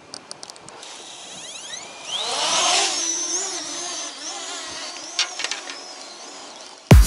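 Parrot ANAFI quadcopter drone's motors spinning up with a rising whine after a few clicks, then running louder with a wavering pitch as the drone lifts off. Music with a beat cuts in abruptly at the very end.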